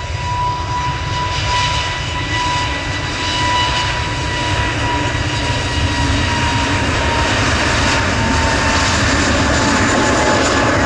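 Jet aircraft engines running at takeoff power: a deep steady rumble with a high whine that slowly drops in pitch, growing gradually louder.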